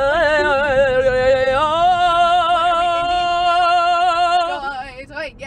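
A person singing unaccompanied, the pitch wavering up and down at first, then holding one long steady note for about three seconds before trailing off near the end.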